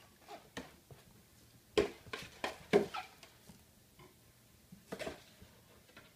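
Cardboard carton bumped and scuffed about on a tile floor by a playing kitten: a string of short knocks and scrapes, several in quick succession about two to three seconds in and another pair about five seconds in.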